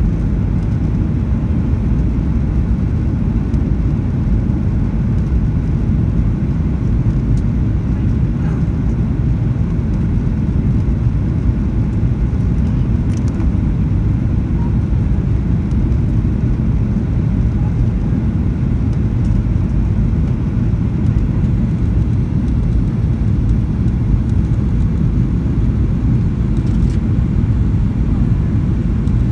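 Steady low rumble of a Boeing 737-800 in flight, engine and airflow noise as heard inside the cabin, unchanging throughout, with a couple of faint clicks.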